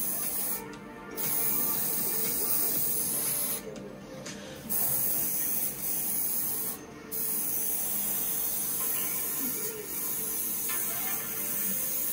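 Airbrush spraying model paint: a steady air-and-paint hiss that breaks off briefly three times, about half a second in, around four seconds in and near seven seconds in.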